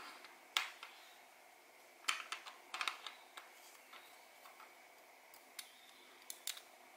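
Faint, irregular small clicks and taps of a wristwatch movement being handled in a plastic movement holder, with a cluster of clicks about two to three seconds in and a couple more near the end.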